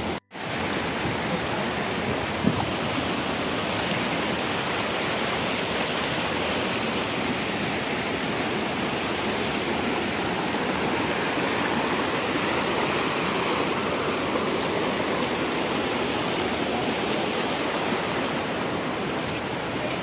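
Waterfall: a steady, even rush of falling water, cut off for a moment just after the start.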